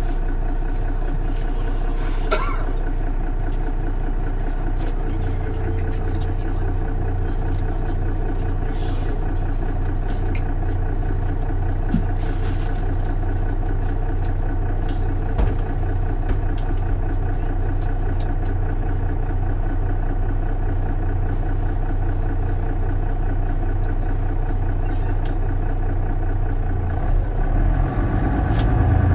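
Mercedes-Benz Citaro city bus engine running at a steady speed with a low hum, with a brief squeal about two seconds in. Near the end the engine note changes and grows louder.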